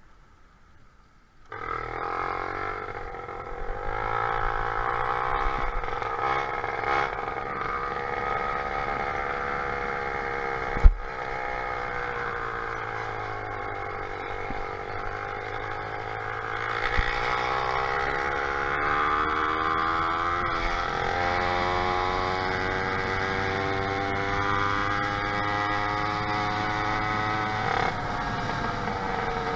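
Motorized bicycle engine running under way, cutting in suddenly about a second and a half in, its pitch falling and rising as engine speed changes. A single sharp knock about eleven seconds in.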